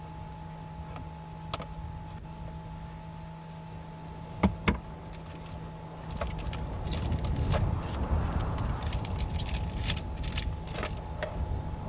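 Two sharp clicks, then rustling, shuffling and small knocks as someone moves about and handles things inside a car, over a steady faint hum.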